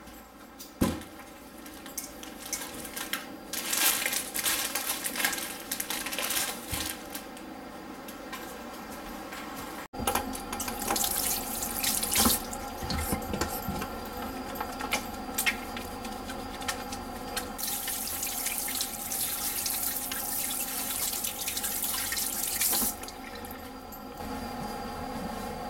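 Water running from a washbasin tap and splashing over hands during face washing, coming in spells, with a louder steady run near the end before it eases off.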